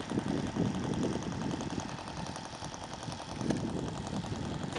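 Engine of a radio-controlled Piper J-3 Cub scale model plane idling on the ground, a steady, rapid, even beat.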